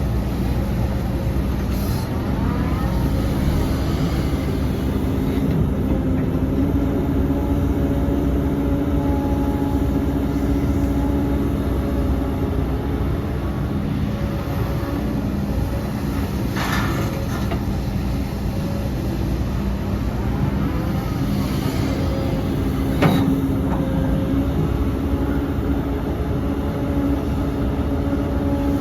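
Heavy diesel earthmoving machinery running steadily under load, with two short metallic clanks, one about two-thirds of the way in and one near the end.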